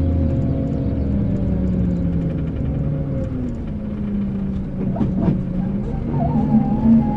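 Scania K380 coach's rear-mounted diesel engine running at low speed. Its pitch sags and then climbs again in the last second or so. A short clatter of sharp knocks comes about five seconds in.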